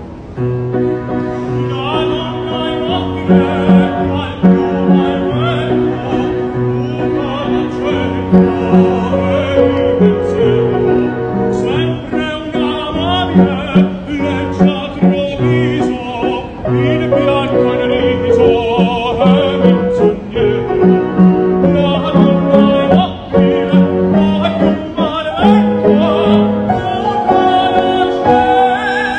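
A piano accompaniment with a man singing opera over it in a full operatic voice with strong vibrato.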